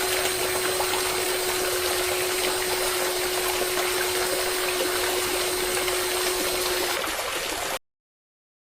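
Small electric submersible water pump running, with a steady motor whine over the rush of water it is moving. The whine stops about seven seconds in, and the water sound cuts off abruptly just before the end.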